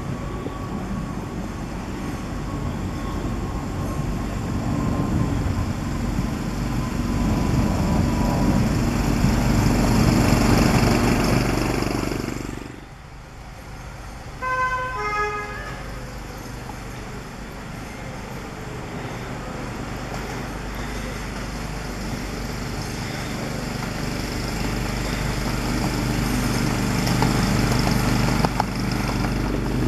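Ride-on miniature Hymek diesel locomotive running along the track, its running noise growing louder as it approaches, then dropping off sharply about 12 seconds in. Midway it sounds a short two-note horn, high then low, and the running noise then builds again as it passes close by.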